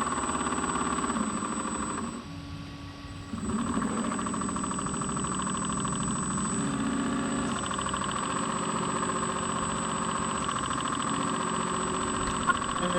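Radio-controlled model fishing boat's motor running steadily. It drops in level about two seconds in and picks up again a second or so later.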